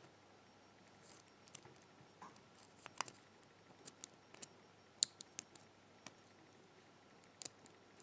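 Faint, irregular metallic clicks and ticks of a lock pick working the wafers of an Illinois Duo padlock's wafer core under tension, checking them for feedback. The clicks come singly and in small clusters, the loudest about five seconds in.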